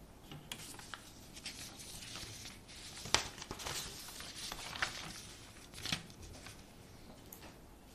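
Sheets of paper being handled and slid across a desk: soft rustling with a few sharper crackles of paper, about three seconds, five seconds and six seconds in.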